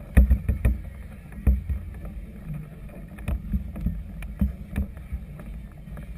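Choppy water slapping against the hull of a moored floating clubhouse, heard as irregular low thumps and sharp knocks over a steady low rumble of wind on the microphone.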